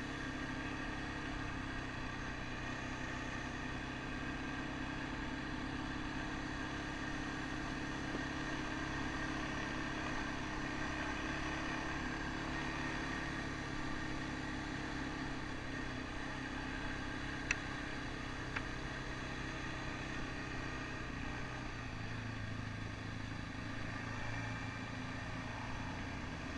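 ATV engine running steadily as the quad rides along a gravel trail, with two brief sharp ticks about two-thirds of the way through.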